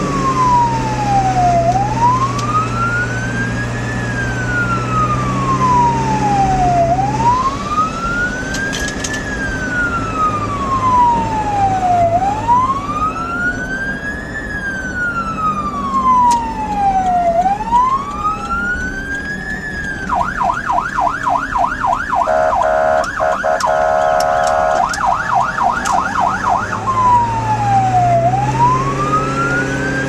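Emergency vehicle siren in a slow wail, rising and falling about every five seconds. About two-thirds of the way in it switches to a fast yelp for several seconds, with a steady horn blast over part of it, then returns to the wail. Vehicle engine and road noise run underneath.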